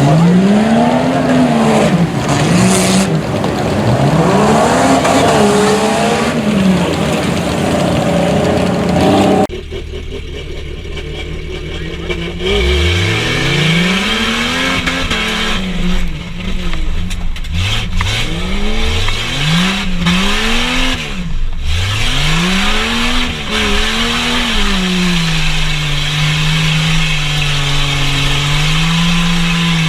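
Tough-truck engine revving up and dropping back again and again as the truck is driven hard over the obstacle course, then holding a steady note for the last few seconds.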